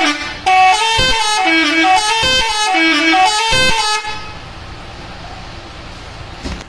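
A bus's telolet multi-tone musical horn playing a tune, its notes stepping down and back up in a repeating pattern, cutting off about four seconds in. After that comes steady traffic noise.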